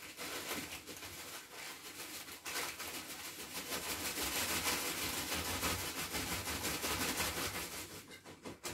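A paper packet crinkling and rustling as dried herbs are shaken and pushed out of it into the narrow neck of a large glass bottle, in a steady rustle of many small ticks.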